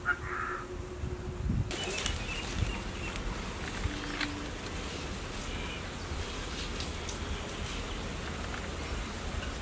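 A bird chirps briefly at the start. Less than two seconds in, a steady rustling noise with scattered light clicks begins abruptly.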